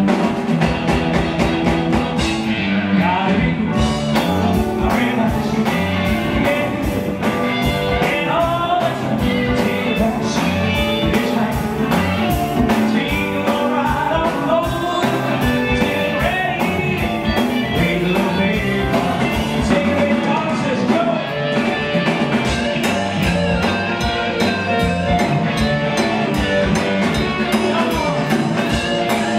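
Live rock band playing: drum kit, bass guitar, electric guitar and keyboards, with a lead melody line bending in pitch above them.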